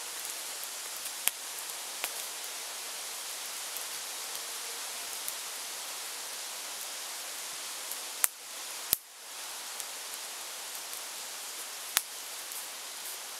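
Steady outdoor hiss broken by about five sharp snaps, the loudest two close together just past the middle.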